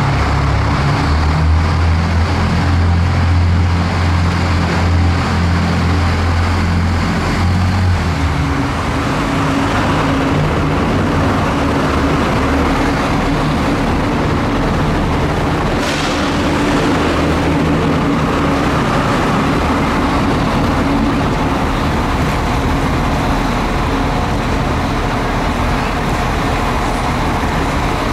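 An Irish Rail train's engine running in the station: a deep, steady note that eases off about eight seconds in to a lower, steadier hum. A brief hiss comes about sixteen seconds in.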